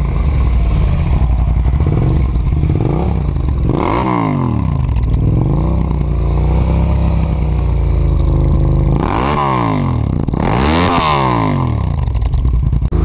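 Suzuki SV650 S's V-twin engine idling loudly through a Dominator GP1 aftermarket exhaust, its dB killer fitted. The throttle is blipped three times: once about four seconds in, then twice in quick succession near the end, the pitch rising and falling each time.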